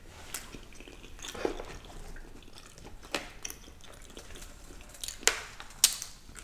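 Close-up eating sounds: a person chewing, with a handful of sharp mouth smacks and clicks a second or two apart.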